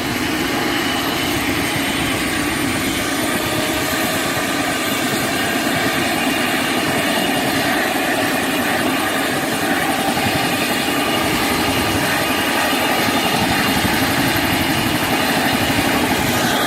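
Helicopter running with its rotor turning: a steady, dense engine and rotor noise with a high whine slowly rising in pitch, the whole sound growing slightly louder.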